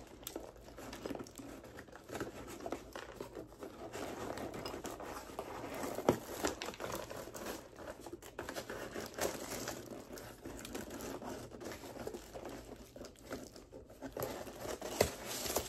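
Clear plastic bag crinkling and crackling as it is handled and pulled at around a box, with sharper crackles about six seconds in and near the end.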